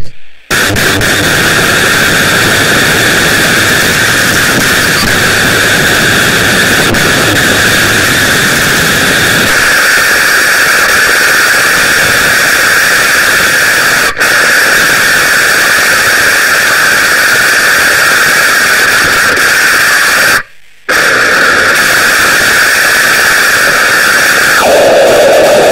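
Loud, dense static-like noise with a steady bright band high in the range. It cuts out abruptly for a split second just after the start and again about 20 seconds in. It thins in the low end about 10 seconds in, and near the end it jumps to a lower band.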